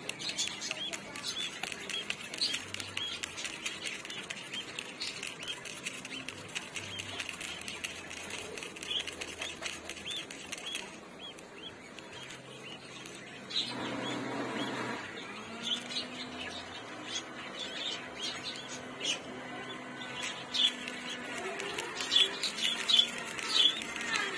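Budgerigar chicks peeping, a rapid run of short high chirps, with a louder noisy burst about fourteen seconds in.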